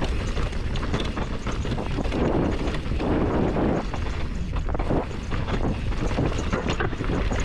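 Wind rushing over an action camera's microphone as a Rocky Mountain Altitude mountain bike descends a dry, loose dirt singletrack. Tyres crunch on the dirt, and the bike clicks and rattles over the bumps.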